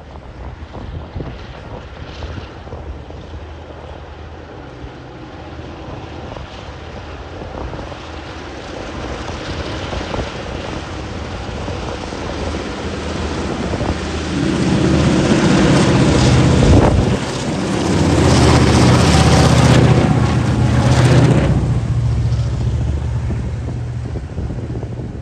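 TasRail diesel-electric locomotives working hard under load up a grade. The engine drone builds as the train approaches, peaks as the two locomotives pass close one after the other, then settles into a steadier rumble, with wind noise on the microphone.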